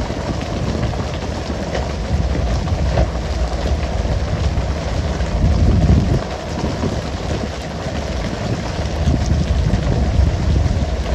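Water sprayers on a pole-and-line fishing boat hissing and splashing onto the sea like heavy rain, with wind gusting on the microphone.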